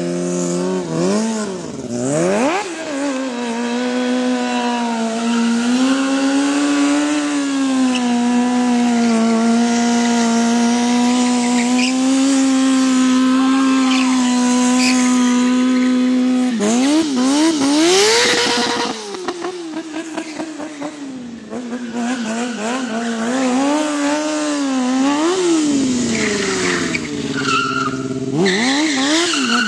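Sport motorcycle engine held at high, steady revs for long stretches during stunt riding, with throttle blips rising and falling in pitch between them. About 17 to 19 seconds in there is a burst of tyre skidding.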